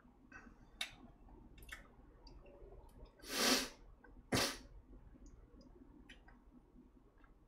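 Chopsticks stirring beaten egg in a fine-mesh sieve over an earthenware pot, giving scattered small clicks and scrapes against the mesh. Two loud breathy bursts stand out about three seconds and four and a half seconds in, the second starting sharply.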